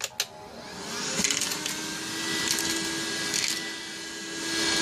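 JACO JSP-023 handheld cordless vacuum cleaner switched on just after a click, its motor spinning up and then running steady with a constant hum and airy hiss, with a few sharp clicks over it.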